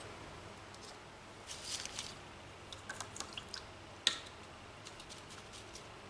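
Small plastic paint pot being handled and opened: faint scrapes and light taps, with one sharp click about four seconds in.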